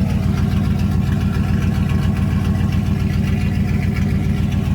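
Second-generation Dodge Ram 1500's 5.9-litre (360) V8 idling steadily through a straight-piped exhaust with the muffler cut off, an even pulse with no valve-train rattle.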